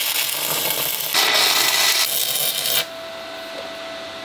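Stick (SMAW) welding arc from a Miller Maxstar 150S inverter crackling steadily as a tack weld goes onto steel. It cuts off abruptly near three seconds in, leaving a faint steady tone.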